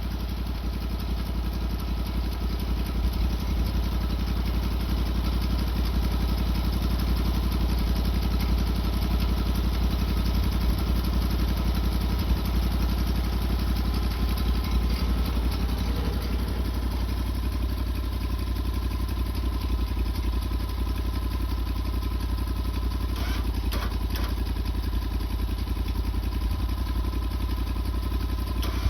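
A sawmill's engine runs steadily while the blade cuts through a burled cherry log. It gets slightly louder through the middle, with a few light clicks late on.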